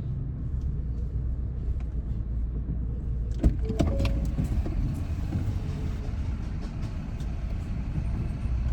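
Car driving, with a steady low rumble of engine and road noise. A few sharp clicks or knocks come in about three and a half seconds in.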